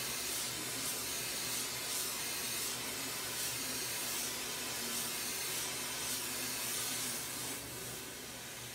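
Glassworking torch flame hissing steadily as it heats glass, dropping a little in level near the end.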